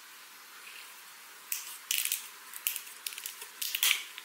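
A shaken bottle of carbonated raw makgeolli being cracked open: the plastic screw cap is twisted a little at a time, letting gas out in short hissing spurts with small cap clicks, starting about a second and a half in.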